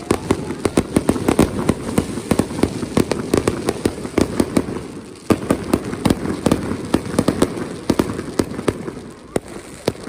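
Fireworks going off in a dense barrage of sharp bangs and crackles, several a second, easing briefly about five seconds in before the bangs pick up again.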